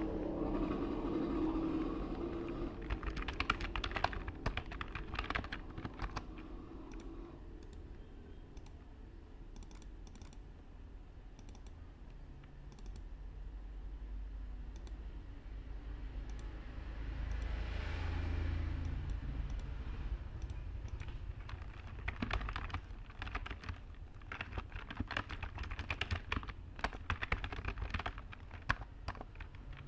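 Typing on a computer keyboard: quick runs of key clicks for the first few seconds and again over the last several seconds, with a pause in between. A steady low background rumble runs underneath and swells about halfway through.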